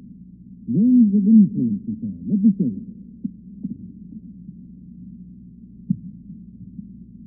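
Muffled, indistinct voices talking, with all the high end missing so that no words come through; the talk comes in a cluster about a second in, then only brief faint fragments.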